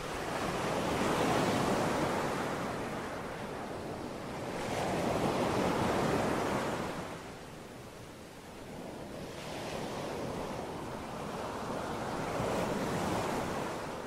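Small waves breaking and washing up on a sandy shore, the surf swelling and fading about every four seconds.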